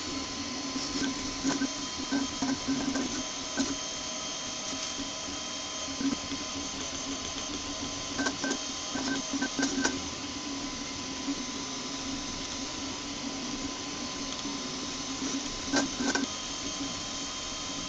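eMAKER Huxley RepRap 3D printer running as it lays down its last few layers: the stepper motors whine and buzz in short uneven spurts as the print head moves back and forth, over a steady hum.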